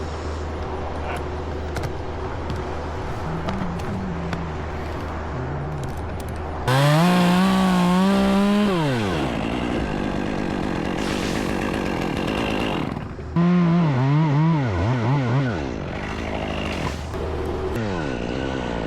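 Gas chainsaw revved hard in two loud bursts, about seven and about thirteen seconds in, its pitch wavering and dropping as it bogs in the cut. Between and before the bursts a steady low engine hum runs underneath.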